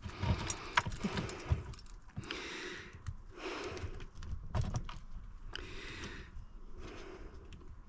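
Irregular small metallic clicks and rattles of hand tools working in a car's ignition lock housing, with three longer rasping noises of about half a second each.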